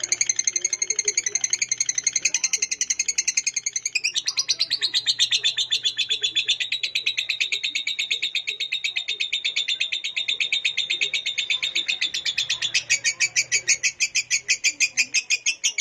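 Lovebird chattering in a long, unbroken run of rapid high chirps, several a second, holding an even pace throughout.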